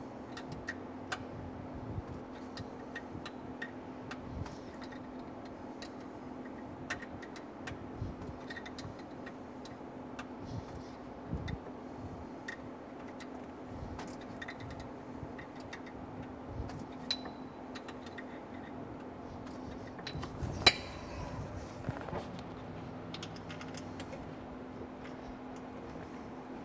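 Scattered light metallic clicks and ticks from a wrench working an engine RPM sensor as it is threaded slowly down toward the flywheel, with one sharper click about 20 seconds in, over a steady low hum.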